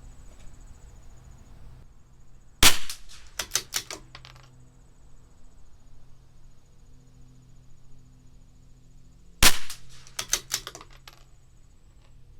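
Two shots from a CZ 457 bolt-action .22 LR rimfire rifle firing Lapua Center-X, about seven seconds apart. Each shot is followed by a quick run of metallic clicks as the bolt is worked to eject the case and chamber the next round.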